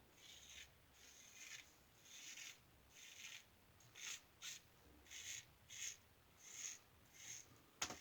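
Faint, repeated short scraping strokes of a Gem single-edge safety razor (New Gem Lather Catcher) cutting through lathered stubble, about one and a half strokes a second.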